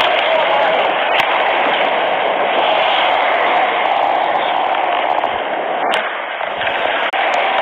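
Ice hockey skating heard on a skater's helmet-mounted camera: a steady, loud scraping hiss of skate blades on ice, with a few sharp clacks of play, one about a second in and one near six seconds.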